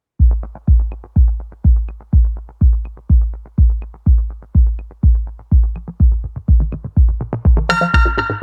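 Electronic intro music: a heavy kick drum beats about twice a second, with quicker light percussion filling in between beats from about six seconds in. Near the end a bright cymbal crash and synth chord come in.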